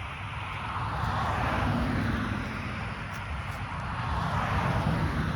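Traffic passing on a road: tyre and engine noise swells about a second in and again near the end, over a steady low rumble. No horn is heard.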